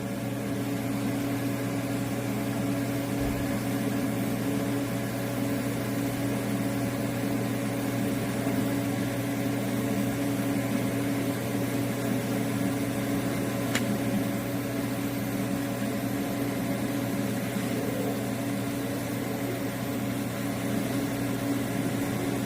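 Arc welding in progress: a steady, even hum from the arc and welding machine over a light hiss, with a single short click about fourteen seconds in.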